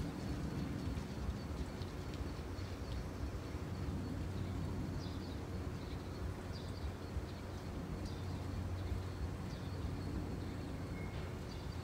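Small birds chirping in short, high, scattered calls over a steady low hum.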